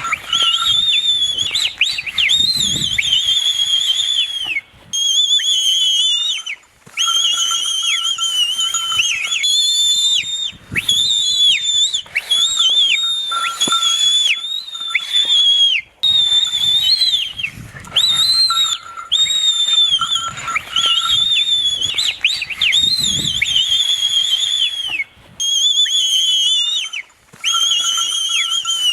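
Shrill whistling used to rouse a Jallikattu bull into its 'dance': long, high held notes with quick downward dips and warbles, broken by short pauses every few seconds. A fainter, lower steady tone comes and goes underneath.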